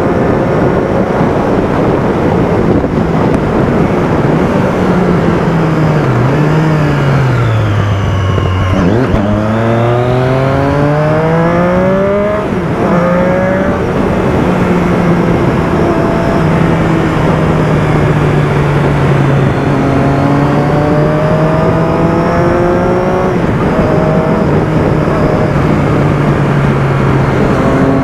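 Motorcycle engine on the move: it drops in pitch as it slows, then revs up, shifts gear about halfway and runs steady, then revs up and shifts again near the end. A steady rushing noise lies under it.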